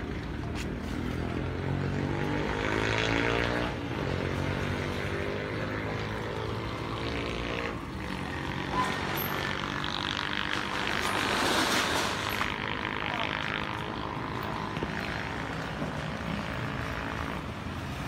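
Small motorcycle and motorcycle-sidecar tricycle engines running and passing in street traffic, their pitch rising and falling as they go by.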